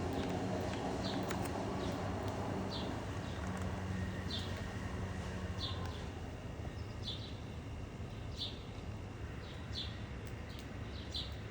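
A small bird repeating a short, high chirp about once every second or so, over a steady low rumble.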